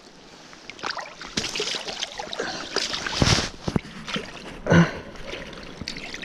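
Boots squelching and sloshing in shallow muddy water, with a string of irregular splashes, the loudest about halfway through.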